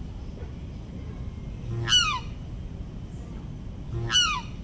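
Black swan calling twice, about two seconds apart; each call is short and high and slides down in pitch.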